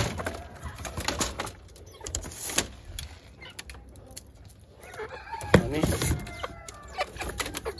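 Chickens clucking and calling, with the longest call, a rising and falling one, about five seconds in. Sharp knocks and rattles come in the first few seconds as the wooden cage slats are handled.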